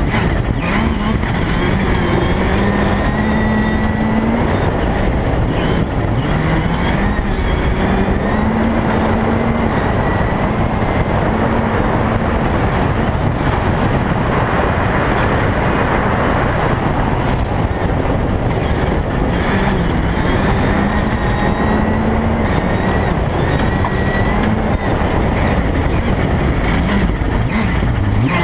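Rally car engine running hard at speed, its pitch climbing and dropping several times with gear changes and throttle, heard on board over steady tyre and gravel noise.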